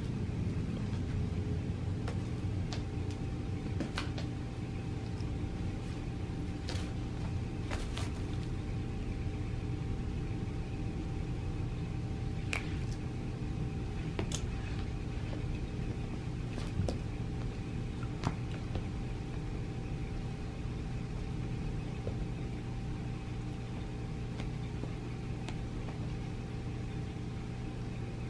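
A steady low hum runs throughout, with scattered light clicks and taps as a cat bats at feather wand toys on carpet.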